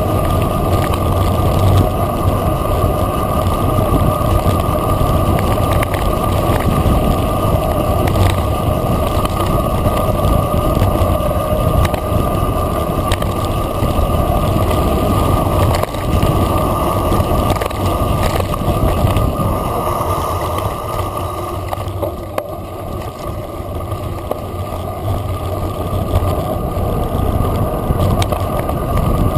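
Mountain bike rolling fast downhill on a dirt and gravel track: a steady rush of wind on the microphone and tyre noise, with scattered short rattles and knocks from the bike over bumps. The noise eases a little about two-thirds of the way through.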